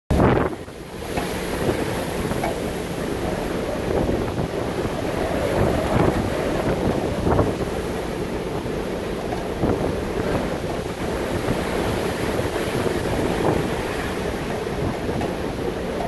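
Strong blizzard wind buffeting the microphone in irregular gusts, over the steady rush of heavy storm surf breaking against the seawall.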